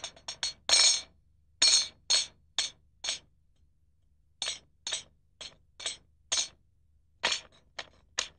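Short, bright metallic jingling strikes, one at a time in an uneven rhythm, with a pause of about a second in the middle.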